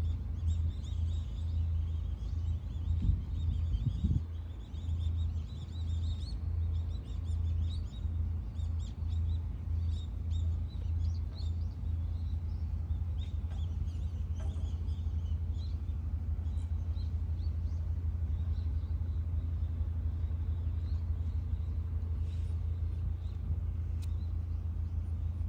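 Cat purring right against the microphone, a low rumble that breaks off and resumes about once a second, then runs on without breaks for the second half. Small birds chirp faintly, mostly in the first half.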